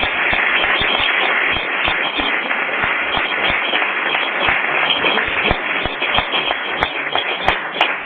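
Small audience applauding: many hands clapping at once in a dense, steady patter that thins into more separate claps near the end.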